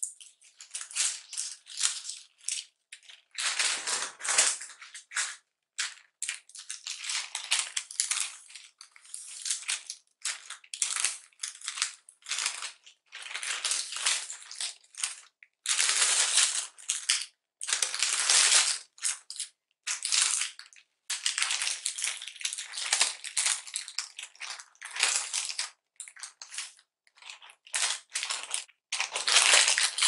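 Crinkling and rustling of a sheet of thin paper being folded tightly around a sandwich, in stop-start bursts a second or two long with short pauses between.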